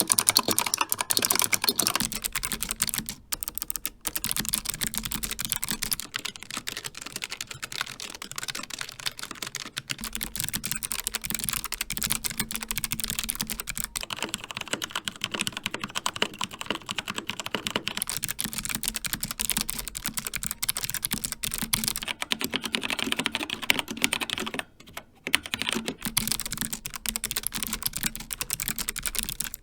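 Continuous fast typing on a run of different mechanical keyboards, the clatter changing character every several seconds as one board gives way to the next. In order: a Razer Huntsman Mini with clicky Razer Purple optical switches, a Logitech G915 with low-profile GL Linear Red switches, a Keychron K4 with tactile Gateron Brown switches, and an Xtrfy K4 with linear Kailh Red switches.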